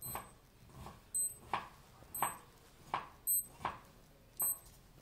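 Digital watch beeping as its button is pressed: about five short, high beeps at irregular intervals, with soft short taps between them.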